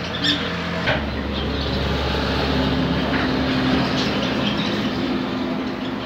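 A steady engine-like drone with a low hum, strongest from about a second in to past the middle, with a few short bird chirps over it.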